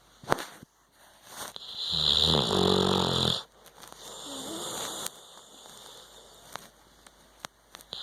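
Pit bull snoring in its sleep: one loud, buzzing snore about two seconds in, lasting about a second and a half, then a softer breath. There is a short sharp click near the start.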